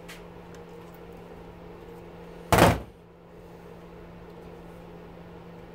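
A steady electrical hum in the background, broken about halfway through by one short, loud clatter of metal and plastic pump parts or a hand tool being handled at a bench vise.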